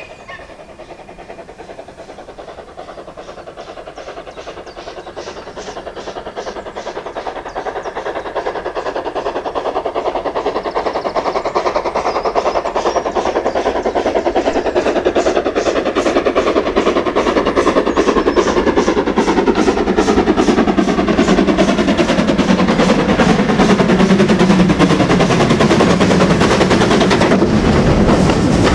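Ex-LMS Ivatt 2MT tank locomotive No. 41312 working a train under steam, with sharp, evenly spaced exhaust beats. The beats grow steadily louder as the engine approaches.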